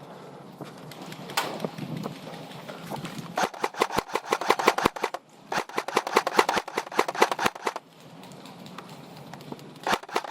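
Airsoft electric rifle firing: a single shot, then two long full-auto bursts of rapid, even clicks, and another burst starting near the end.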